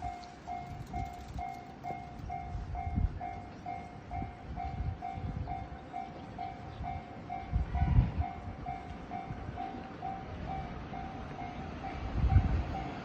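Japanese railway level-crossing alarm ringing its steady 'kan-kan' chime, about two and a half strikes a second. Irregular low rumbles and thumps run underneath, loudest about eight and twelve seconds in.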